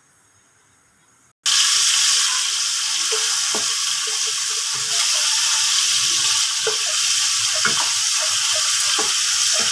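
Chicken pieces frying in hot oil in a wok: a loud, steady sizzle that starts abruptly about a second and a half in, after near silence, with a few light knocks in it.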